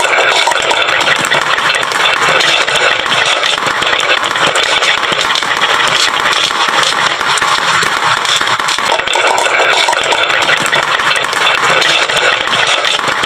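Many marbles rolling and clattering down a wooden marble-run slope in a continuous dense rattle of small clicks, steady in loudness.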